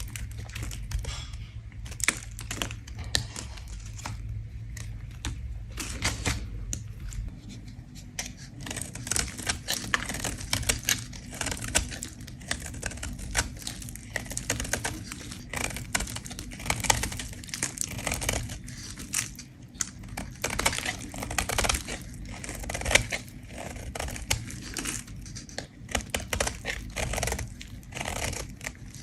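A bar of soap being scraped, a steady run of crisp, crackling scrapes as flakes shave off.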